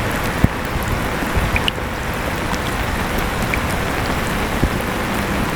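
Steady rain with scattered individual drops tapping, over the even whir of an electric fan running with a faint steady hum.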